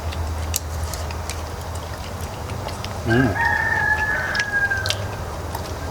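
A rooster crowing once: a long held call of about two seconds starting about three seconds in. Under it runs a steady low hum with a few sharp clicks.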